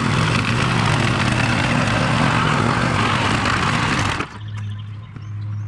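A motor engine running loudly and steadily, then cutting abruptly about four seconds in to a quieter, steady low engine hum.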